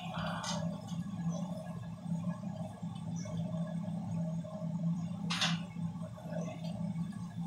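A steady low hum, with one brief scrape or knock about five and a half seconds in as hands work on parts inside an open ceiling-mounted air-conditioner unit.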